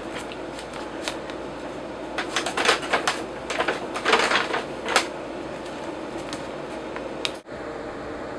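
Brown paper bag crinkling and crackling as a kitten squirms and turns around inside it, in a flurry of crackles between about two and five seconds in, over a steady background hum.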